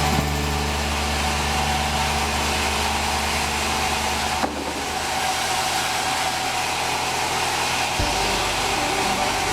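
Sawmill machinery running steadily: an engine's low, even hum under a constant mechanical noise, with a brief dip about halfway through.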